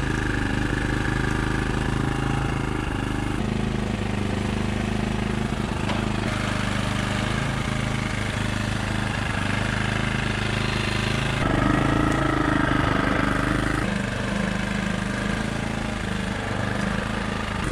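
Small gas engine of a portable generator running steadily, with an all-in-one printer working over it and feeding out a printed sheet. The mix shifts several times as the printer goes through its stages.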